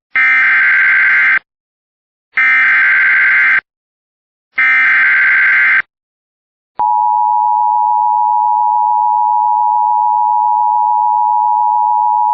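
Emergency Alert System SAME header: three harsh digital data bursts, each just over a second long with a second of silence between them, then a steady two-tone EAS attention signal that starts about seven seconds in. Together they announce the start of an emergency alert broadcast.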